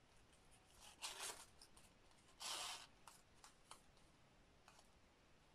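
Faint rustling of ribbon and paper as a fabric ribbon is pulled through punched holes in a small paper tag. There are two short rustles, about one and two and a half seconds in, the second louder, then a few light ticks.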